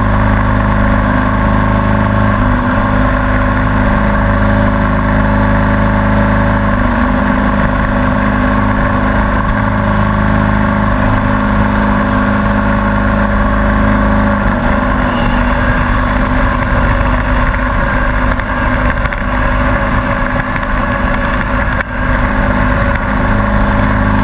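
Riding lawn mower engine running steadily up close under way, its note shifting a little now and then.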